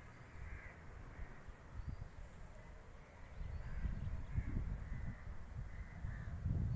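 Wind gusting on the phone's microphone as an uneven low rumble, with faint bird caws repeating every second or so in the background.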